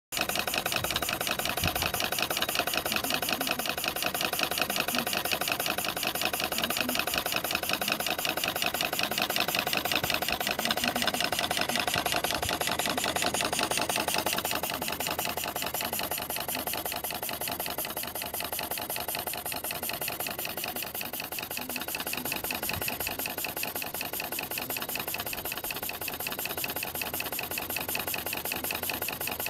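Bing model steam engine running fast: the single-cylinder horizontal engine gives a rapid, even beat with light mechanical clatter. The beat turns slightly quieter from about halfway.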